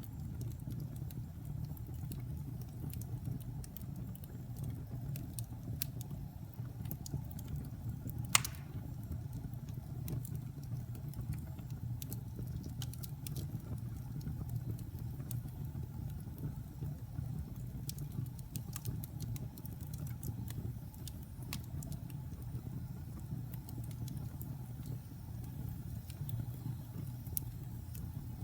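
Wood logs burning in a fireplace: a steady low rumble of flames with scattered sharp crackles and pops, one much louder pop about eight seconds in.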